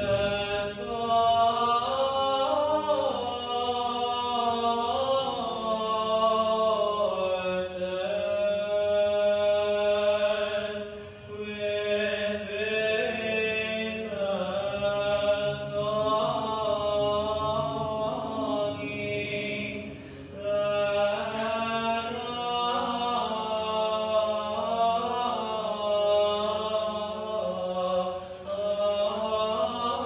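Chanted vocal music: voices singing a slow, winding melody over a steady low held drone, with short breaks between phrases.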